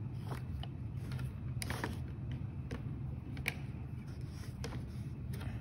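Small irregular clicks and scrapes of multimeter probe tips being placed against the pins of a stepper motor's connector, over a low steady hum.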